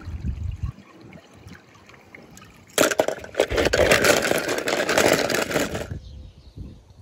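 A loud rushing clatter of many small rapid knocks, starting about three seconds in and cutting off about three seconds later: die-cast toy cars tumbling into a white plastic tub.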